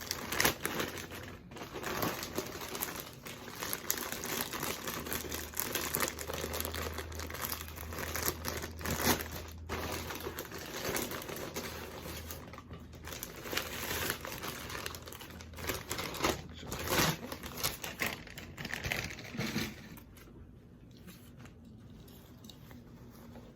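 Packaging being pulled open: continuous crinkling and rustling with sharp crackles and some tearing, dying down about 20 seconds in.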